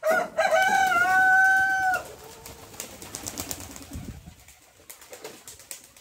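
A rooster crowing once: a few short opening notes and then one long held note that ends about two seconds in. Faint rustling and clicks follow.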